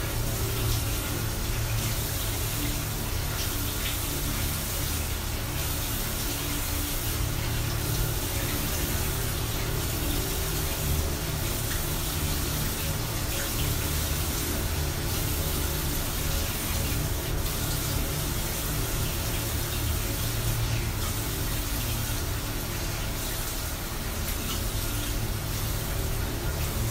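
Water running steadily from a tap into a bathroom sink while hands scoop and splash it onto a face.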